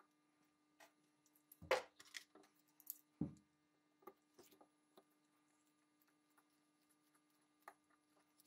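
Small metal parts and a screwdriver clicking and knocking as an antique pepperbox's lock frame is handled and reassembled: a few sharp knocks in the first few seconds, the loudest about two seconds in, then faint scattered ticks as a screw is worked in.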